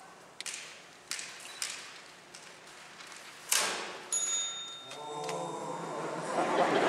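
Typewriter keys struck one at a time, a few sharp clacks spaced about half a second apart, then a louder clatter and a ringing bell ding about four seconds in. A brief low voice sounds, and paper rustling grows louder near the end.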